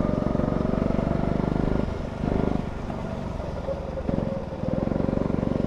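Go-kart engine running under throttle, heard on board, its note dipping briefly about two seconds in and again around four seconds as the throttle eases, then picking back up.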